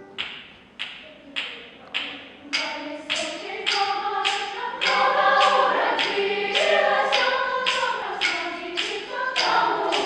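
Children's choir singing a Russian folk-style suite over a sharp, steady percussive beat, a little under two strokes a second. The voices come in about two and a half seconds in and grow fuller and louder about halfway through.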